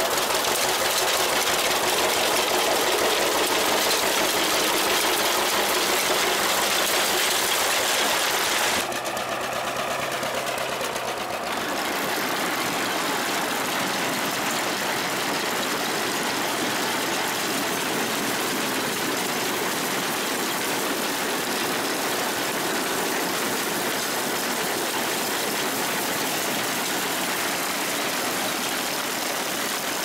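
McCormick-Deering grain binder running through barley, its ground-driven gears, chains and levers clattering rapidly, mixed with the two-cylinder engine of the 1943 John Deere A tractor pulling it. The sound drops a little after a cut about nine seconds in, then carries on steadily.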